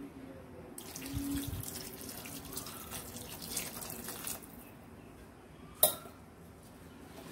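Water poured from a steel vessel into an earthenware pot of curry, splashing onto the vegetables for a few seconds. A single sharp knock near the end.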